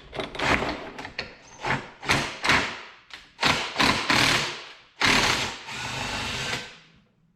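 Metal hand tools and motorcycle fork parts knocking and clicking, then two longer stretches of scraping and rattling, as wrenches work the nut on the end of the fork's damper assembly.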